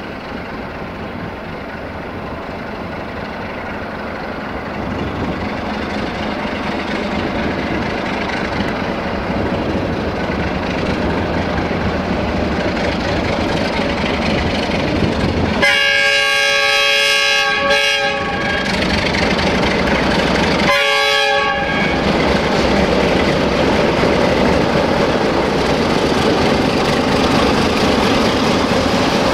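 Romanian 060-DA (LDE2100) diesel-electric locomotive with its Sulzer diesel engine, hauling a freight train and passing close by, growing steadily louder as it approaches. The locomotive horn sounds twice about halfway through: a blast of about two seconds, then a shorter one of about a second.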